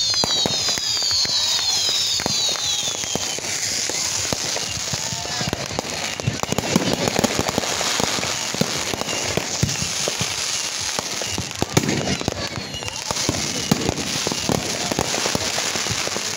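Fireworks going off close by: a dense, continuous run of bangs and crackling, with several falling whistles overlapping in the first few seconds.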